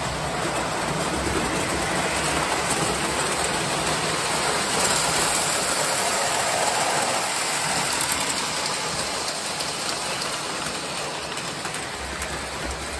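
O-scale model trains running on three-rail tinplate track: a steady rushing clatter of metal wheels on the rails, with a low motor hum. It swells in the middle as a freight train runs right past.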